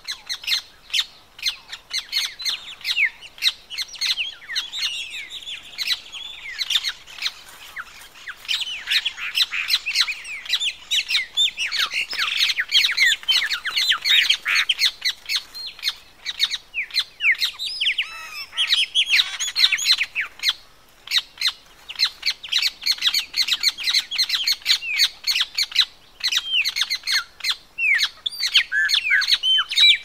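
Busy wetland bird chorus: many birds calling at once in quick, overlapping notes, with ibis calls standing out among them. The calling thins briefly a few times before picking up again.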